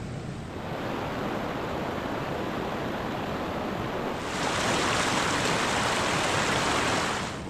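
Rushing water of a mountain stream, a steady hiss that grows louder about half a second in, louder again about four seconds in, and drops away abruptly just before the end.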